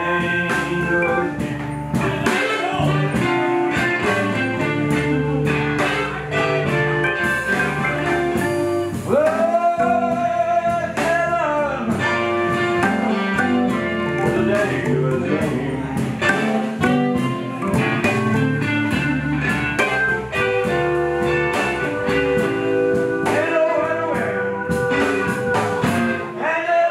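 Blues band playing live, with guitar and singing over a steady rhythm.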